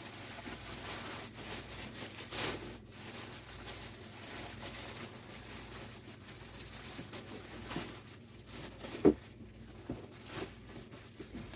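Hands handling packaging and a golf club: rustling, crinkling and scraping, with one sharp knock about nine seconds in and a few lighter taps.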